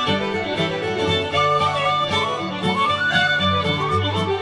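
Instrumental background music led by a fiddle, with gliding melody notes over a steady beat.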